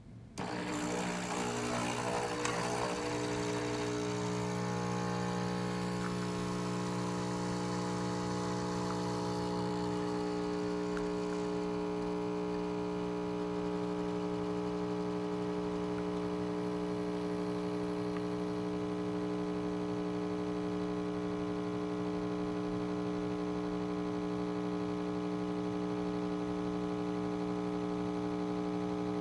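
Nespresso Lattissima espresso machine's pump buzzing steadily as it brews an espresso. It starts suddenly with a noisier gurgling rush for the first couple of seconds, then settles into an even, unchanging hum.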